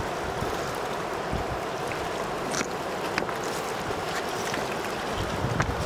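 Steady rush of a river running over a stony bed and riffle, with a few faint clicks and an occasional low rumble of wind on the microphone.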